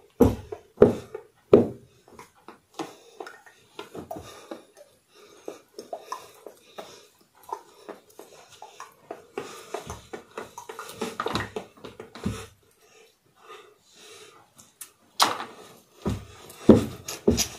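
A rhythmic beat of sharp percussive hits. They come evenly at first, turn looser and quieter through the middle, and grow loud and dense again near the end.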